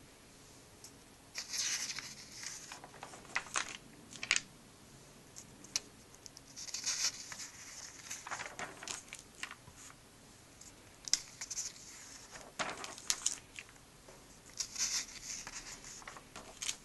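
Glossy comic-book pages turned by hand: paper rustling and crinkling with light taps, in about five separate bursts.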